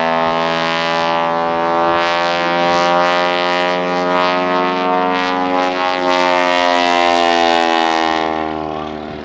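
Radial engine and propeller of a Grumman Ag Cat biplane running steadily as the plane flies past, its pitch dipping and rising slightly midway, then fading near the end.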